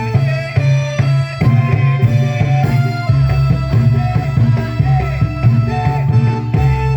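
Band music with drums keeping a steady beat under a melody line.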